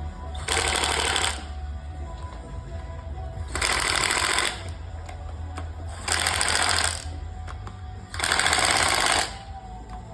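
Power drill running in four short bursts of about a second each, a couple of seconds apart, with radio music playing underneath.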